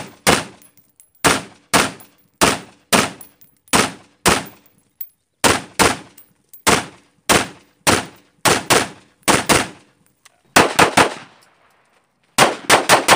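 Gunfire: an AR-style rifle fired in steady semi-automatic shots, about two a second, each a sharp report with a short echo. Near the end come quicker strings of pistol shots, the last four close together.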